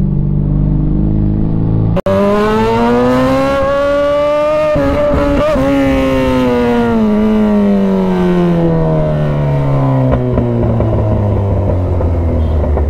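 Kawasaki Z1000's inline-four engine, heard from the rider's seat. It runs steadily, then after a brief break about two seconds in the revs climb for about three seconds and fall away steadily for about five, settling low near the end.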